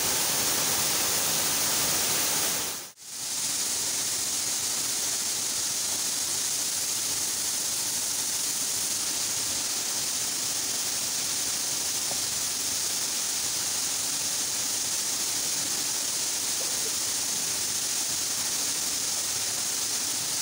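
Steady rushing of water at a waterfall, cutting out briefly about three seconds in and then carrying on unchanged.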